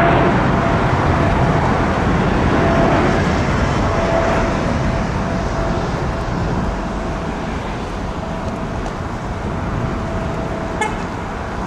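Boeing 777-200ER jet airliner's engine roar, slowly fading as it moves away, with a steady mid-pitched tone running through it.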